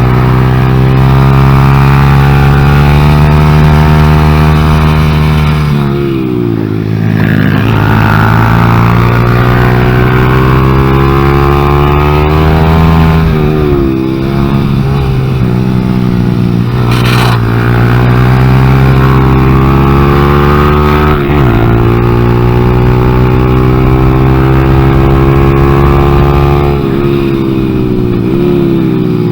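Honda Grom's 125 cc single-cylinder engine running hard under load, its note holding and climbing and then dropping sharply about four times as the throttle shuts or the gears change.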